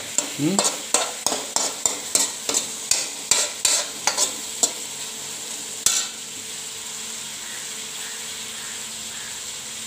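Metal spoon scraping and knocking against a metal kadai while stirring sliced onions and tomatoes frying in oil, over a steady sizzle. The stirring stops about six seconds in, leaving the sizzle alone.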